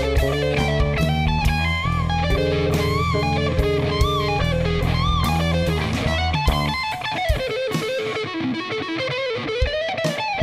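Blues band playing: electric guitar soloing with bent, wavering notes over bass guitar and drums. About seven seconds in the bass and drums drop out, leaving the guitar alone, and the full band comes back in at the very end.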